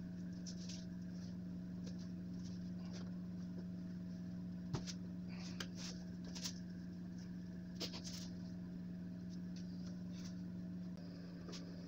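Faint scratching and a few small clicks as an awl pulls thread through the rubber edges of a tyre's sidewall cut, over a steady low hum.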